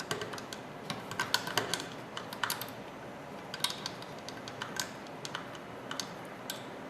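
Irregular light clicks and ticks of small metal parts as the screws of the Simunition holding device are tightened onto an MP5's barrel and barrel sleeve.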